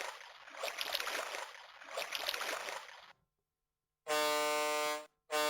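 VTech Smartville Boat toy's small speaker playing a sound effect of splashing water in three swells. After a second of silence, a steady horn-like tone with many overtones sounds, breaks off briefly near the end and starts again.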